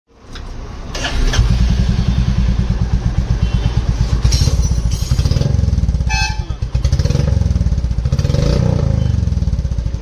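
Royal Enfield Classic 350 Reborn's single-cylinder engine running through a Short Punjab (Bada Muh) silencer with catalytic converter, a steady low exhaust beat, rising in brief throttle blips about five and eight seconds in.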